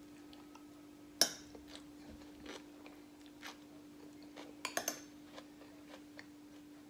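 Metal spoon clinking against small serving bowls and a plate as taco toppings are spooned onto a tortilla: one sharp clink about a second in and a quick run of three or four clinks about two-thirds of the way through, with a few lighter ticks between. A faint steady hum runs underneath.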